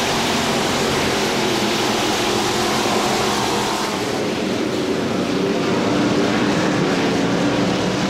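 Dirt-track race car engines running hard as a pack of cars laps the oval. The sound changes abruptly about four seconds in, where the footage is cut to another lap.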